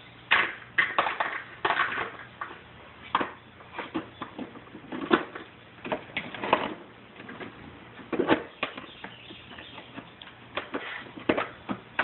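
Irregular knocks, clicks and scrapes of hands working a small black-powder signal cannon while it is loaded with paper wadding.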